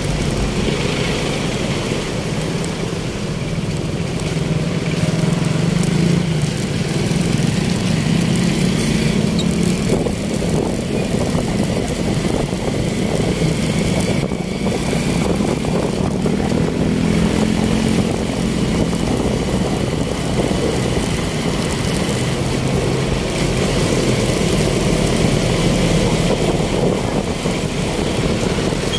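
Street traffic: a continuous mix of vehicle engines running, with no break.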